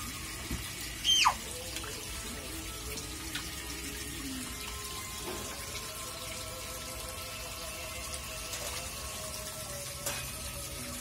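Small fountain in a children's fishing-game pool running with a steady splashing trickle. About a second in, a short, loud high squeak falls steeply in pitch.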